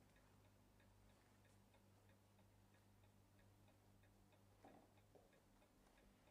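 Near silence: a clock ticking faintly and steadily over a low hum, with a faint rustle near the end.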